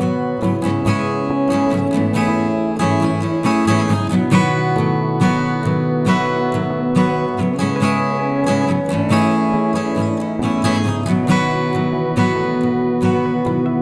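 Background music: acoustic guitar strumming and plucking a steady, rhythmic accompaniment.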